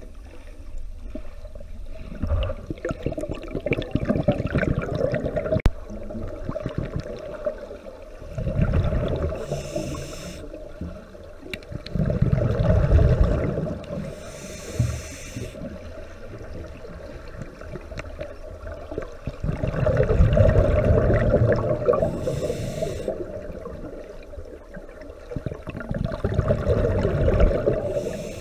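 Scuba diver breathing through a regulator, heard underwater: a short hiss on each inhale, then a long rumbling, gurgling burst of exhaled bubbles, repeating slowly about every six to eight seconds.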